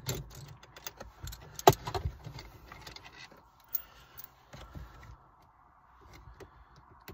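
Hand tools clinking and clicking against metal while the shifter base bushings are being undone, with one sharp knock about a second and a half in; the clatter thins out after about three seconds.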